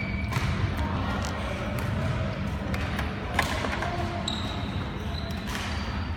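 Sports-hall ambience: a steady low hum, scattered sharp knocks, the loudest about three and a half seconds in, and a few brief high squeaks of shoes on the wooden court floor.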